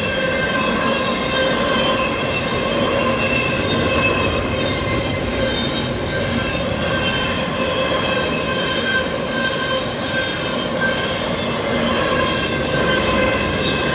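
Double-stack intermodal freight cars rolling steadily past over a grade crossing, their wheels rumbling on the rails, with the crossing's NEG electronic bell ringing throughout.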